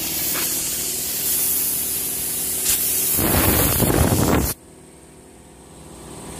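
Air-powered texture hopper spray gun spraying textured paint onto a wall: a loud, steady hiss of air and paint that grows stronger about three seconds in, then cuts off suddenly about two-thirds of the way through, leaving a faint hum.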